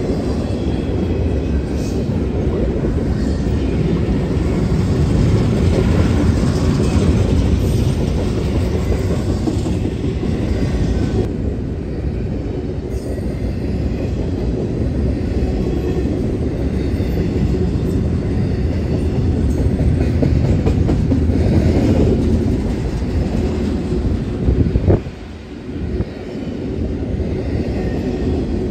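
A BNSF double-stack intermodal freight train's well cars rolling past, a steady rumble and clatter of wheels on the rails. The level dips briefly near the end after a sharp tick.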